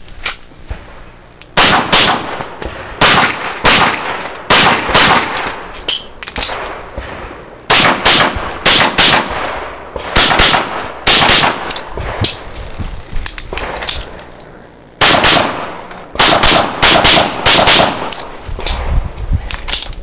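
Rapid strings of pistol shots from a Tanfoglio Stock III, fired in quick pairs and clusters with short pauses between targets. A longer break of about two seconds falls in the middle.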